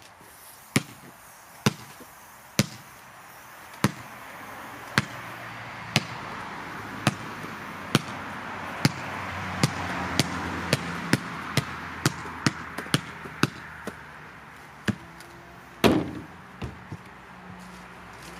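An inflated ball bouncing on concrete: sharp slaps about once a second, quickening to two or three a second in the middle, then a last louder thump near the end. A faint rushing background swells and fades through the middle.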